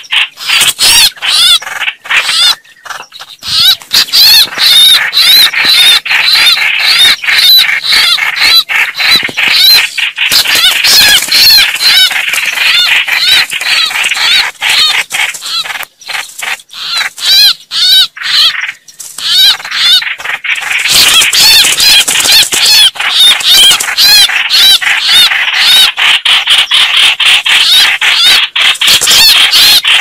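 Red-whiskered bulbuls calling in a dense, rapid stream of harsh, overlapping notes: the agitated calling of bulbuls fighting. There are short lulls about 3, 16 and 19 seconds in.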